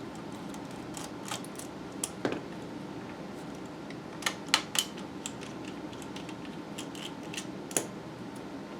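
Irregular light clicks and taps of a small screwdriver and the plastic shell of a computer mouse being handled while screws are taken out of its underside, the sharpest a quick cluster about four and a half seconds in and another near the end, over a faint steady hum.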